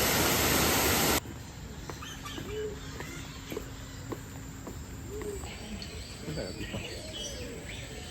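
A loud, steady rushing noise cuts off abruptly about a second in. It gives way to quieter bird-aviary ambience: birds calling and chirping, including a short arched call repeated several times, with clicks over a faint hum.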